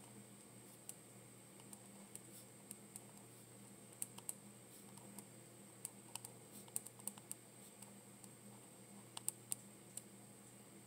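A quiet room with a steady low hum and scattered light clicks, which come in small bunches a little way in, around the middle, and near the end.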